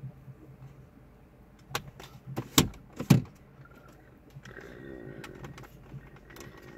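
Plastic dashboard trim parts being handled and snapped back into place: three sharp clicks and knocks in the middle, the last two loudest and about half a second apart, followed by a soft rustle.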